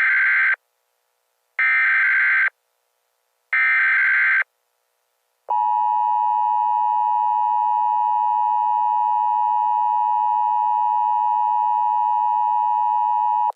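Emergency Alert System signal: three short, harsh data bursts (the SAME header), then a steady two-tone attention signal that starts about five and a half seconds in and holds for about eight seconds before cutting off.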